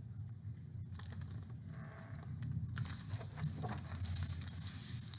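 Pages of a hardcover picture book being handled and turned: a light paper rustle with small crackles, starting about a second in and growing toward the end, over a low steady hum.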